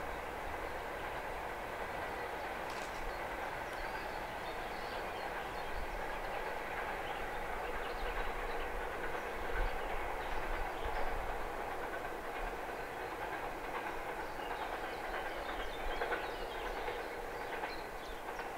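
Loaded freight train rolling away along the track: a steady rumble of wagon wheels on the rails with scattered faint clicks, easing slightly near the end.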